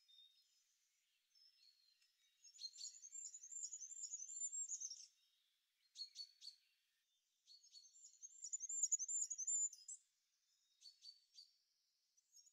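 A small songbird singing faint, high-pitched phrases of quick repeated notes, each about two and a half seconds long, with a few short call notes in between.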